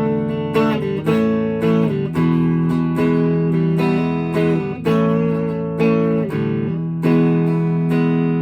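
Electric guitar strumming a series of chords through a guitar amplifier's clean channel, with dials at noon and no reverb or delay. Each chord rings for about half a second to a second before the next strum.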